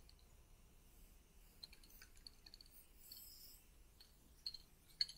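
Mostly quiet, with a faint short hiss from an aerosol spray-paint can, then a few sharp clicks near the end.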